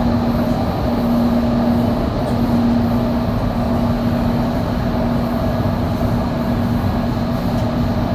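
Doha Metro train running: a steady rumble of the moving train with a constant hum through it.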